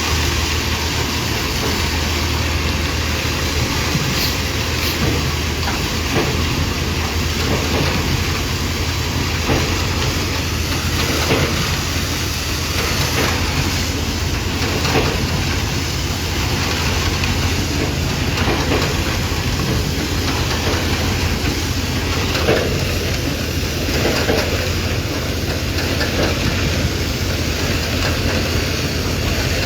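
Heavy construction machinery running: a steady diesel engine drone with irregular metallic clanks and knocks.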